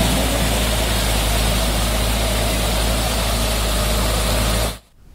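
Torrent of muddy floodwater in a swollen mountain river, a steady loud rush over a deep rumble, cutting off suddenly near the end.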